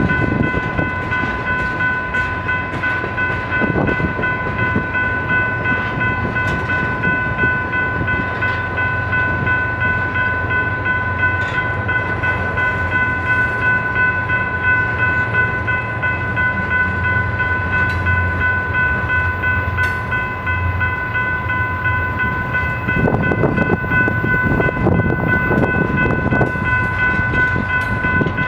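Freight cars (tank cars, a hopper and boxcars) rolling past at close range: a continuous rumble of wheels on rail with scattered knocks and clatter, busiest a few seconds before the end. A steady high-pitched ringing tone holds over it throughout.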